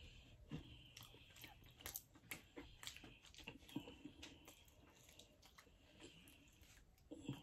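Faint chewing with scattered small clicks and crackles as a fried chicken wing is picked apart by hand and eaten.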